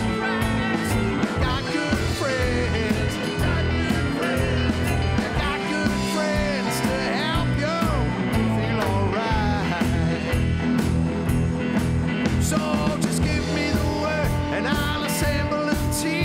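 Live rock band playing: electric guitars, electric bass and a drum kit, in a steady rock groove.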